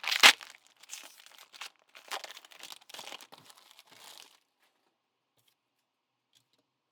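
Trading-card pack wrapper crinkling and tearing as it is opened, in loud bursts at first and then lighter rustling, stopping about four seconds in.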